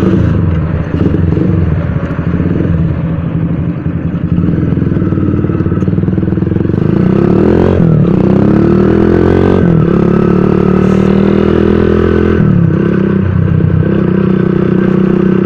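Motorcycle engine running under way, heard from on the bike. Its pitch rises and drops a few times about halfway through, then holds steady.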